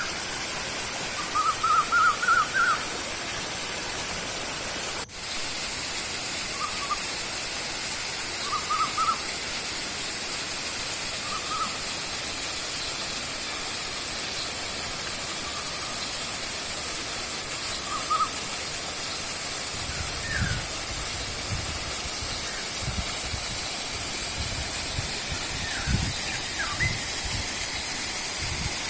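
Steady rushing of a river and waterfall, with a bird calling in short series of quick whistled notes every few seconds, loudest near the start. Low thumps come in during the last third.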